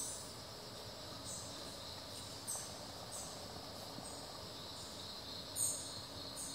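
Tropical forest ambience: a steady high drone of insects, with short high chirps coming every second or so, the loudest about five and a half seconds in.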